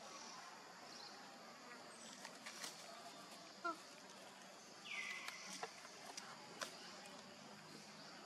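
Faint steady high drone of insects, with scattered sharp clicks and crunches of a macaque biting and chewing a fresh cucumber. A brief chirp sounds a little past three and a half seconds in, the loudest moment.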